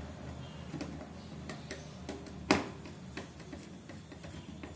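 Small irregular clicks and taps of hand tools against an LED TV's power supply board and metal back panel, with one louder, sharper click about two and a half seconds in, over a faint low hum.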